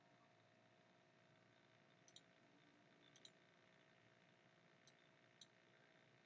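Near silence with a few faint computer mouse clicks, some in quick pairs, over a faint steady hum.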